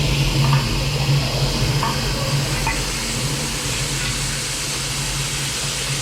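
A drain jetter running: a steady engine hum under a constant hiss of high-pressure water spray.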